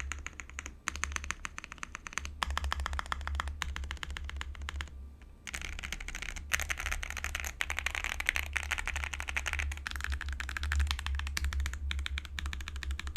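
Fast typing on an Akko Alice Plus mechanical keyboard fitted with lubed Akko POM Pink switches, a polycarbonate plate, plate and PCB foam and a tape mod: dense runs of keystrokes in bursts, with brief pauses about two and five seconds in.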